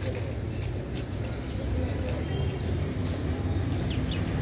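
Knife blade scraping along a snakehead fish on a wooden chopping block, heard as short faint scrapes, over a steady low rumble and faint background voices.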